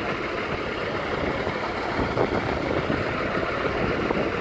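Fire engine idling steadily, a continuous engine noise without change.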